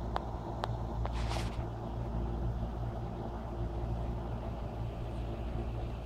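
A steady low hum, with two faint clicks early on and a short hiss about a second in.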